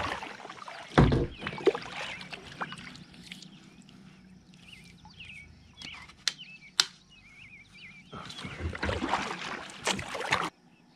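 Kayak paddling: a double-bladed paddle dipping and splashing through lake water, stroke after stroke, with a heavy thump about a second in and another run of splashing strokes near the end.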